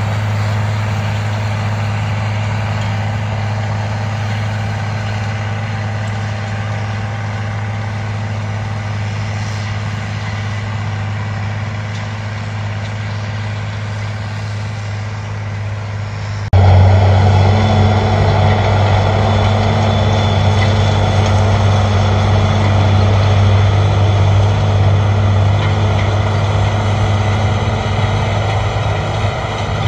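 Case IH 9130 tractor's diesel engine running steadily under load while pulling a tillage implement across a field, a low, even drone heard from across the field. The drone becomes suddenly louder a little past halfway.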